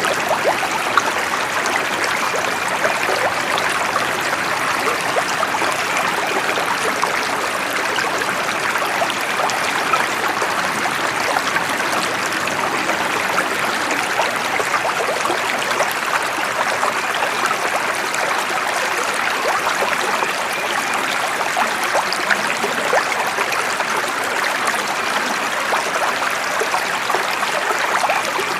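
A stream of running water flowing steadily, an even rush of water with many small splashes, unchanging throughout.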